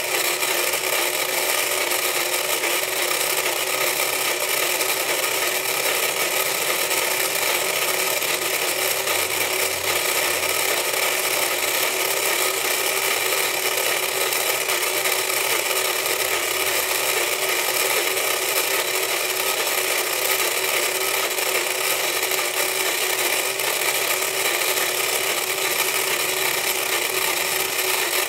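Battery-powered mini whack-a-gator toy running, its small motor and plastic gears driving the gator heads up and down with a steady mechanical whir.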